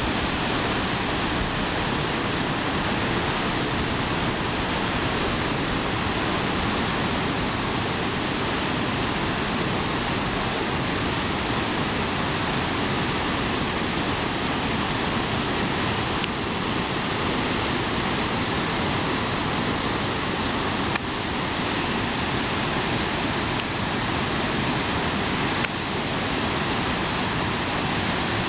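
River waterfall pouring over rock ledges into a narrow rock gorge: a steady, unbroken rush of falling water.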